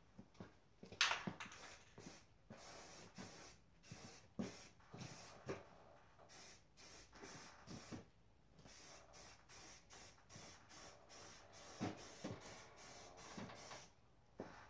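Aerosol spray paint can sprayed in many short bursts one after another, with a sharper, louder burst about a second in.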